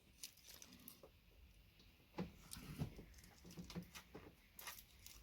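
Faint, irregular small clicks and scrapes of side cutters gripping and working a pin out of the plastic housing of a VGA connector.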